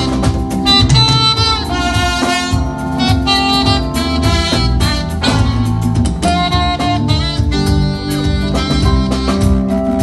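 Live band playing: saxophone and trumpet carry the melody over a drum kit.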